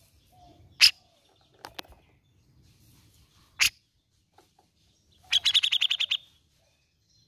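Grey-cheeked bulbul (cucak jenggot) calling: a sharp single note about a second in, a couple of clicks, another sharp note near the middle, then a fast chattering run of about a dozen notes near the end.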